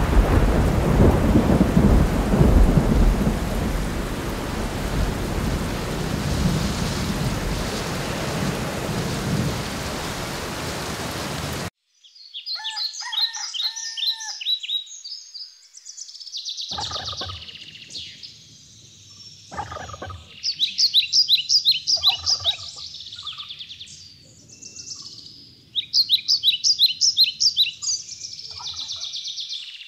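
Thunder rumbling over steady heavy rain, cutting off suddenly about twelve seconds in. Then birds singing, with repeated rapid trilled phrases and two brief low thumps.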